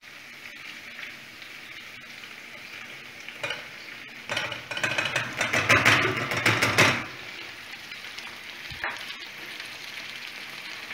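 Onions sizzling in oil and butter in a saucepan. About four seconds in, thawed mixed seafood is tipped in from a plastic colander, giving a louder burst of sizzling and clatter for about three seconds before the steady sizzle resumes.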